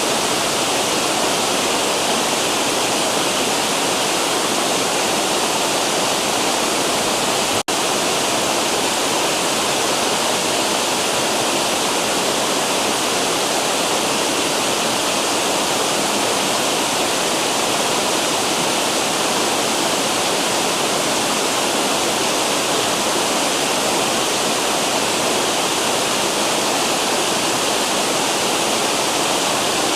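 Cascading river waterfall: a steady rush of falling water, broken once by a split-second dropout about eight seconds in.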